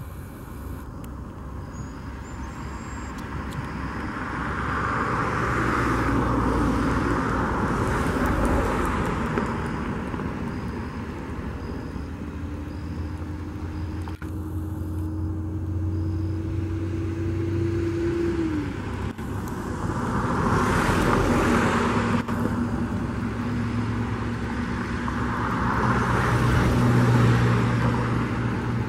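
Pushback tug towing an Airbus A320 by a towbar on its nose gear. The tug's engine runs and swells in loudness three times, over a steady whine.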